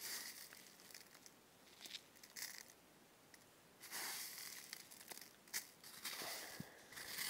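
A hand sweeping and scooping through a layer of hailstones on the ground, the ice pellets shifting against each other in several short bursts.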